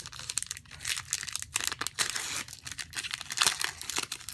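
Pokémon trading-card booster pack's foil wrapper being torn open and crinkled by hand: a rapid run of crackles and rips, with one longer tear about two seconds in.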